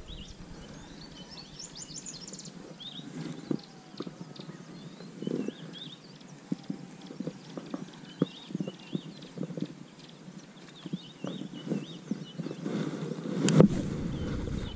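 Scattered light knocks around a small fishing boat as rod and reel are handled, with birds chirping in the background throughout. A single louder knock comes about a second before the end.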